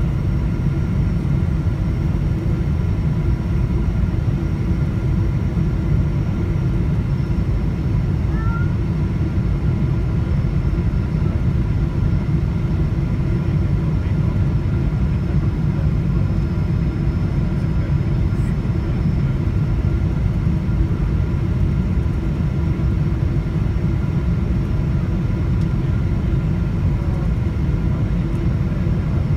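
Cabin noise of a Boeing 777-300ER on approach, heard from a window seat beside its GE90 engine: a steady, deep rumble of engine and airflow through the fuselage, with faint steady high tones over it.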